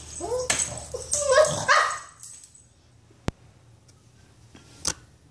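Dogs barking and yipping excitedly in play, several short barks in the first two seconds. Then it goes quiet apart from a sharp click about three seconds in and a knock near the end.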